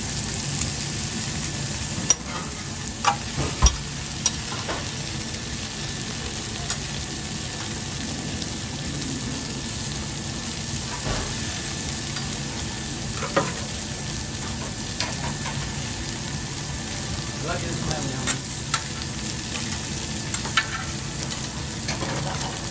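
Meat and vegetables sizzling steadily on a steel flat-top griddle, with a metal spatula clacking and scraping against the plate now and then, several sharp clacks in quick succession about two to four seconds in.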